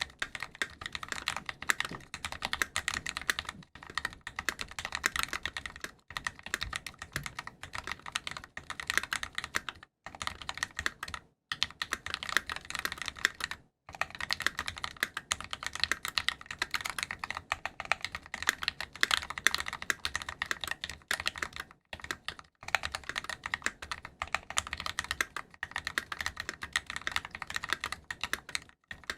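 Fast continuous typing on a Think6.5 custom mechanical keyboard with lubed FEI Matcha tactile switches and GMK Necro keycaps: a dense stream of keystroke clacks, broken by a few short pauses.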